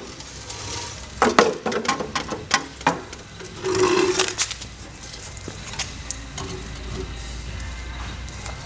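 Old rusted sheet-steel torque boxes knocking and clanking as they are handled and moved about on a concrete floor, with several sharp knocks in the first few seconds and a scrape about four seconds in. A low steady hum sounds under the second half.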